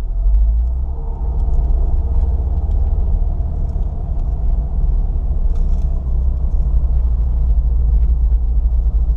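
Ford Fiesta ST heard from inside the cabin while being driven: a steady low rumble of engine and road noise, with a faint steady engine tone over it.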